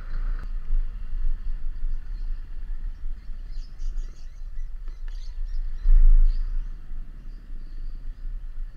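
Motor scooter ride at low speed: a low wind rumble on the microphone with the engine faint underneath, swelling about six seconds in. A few faint high chirps come through around the middle.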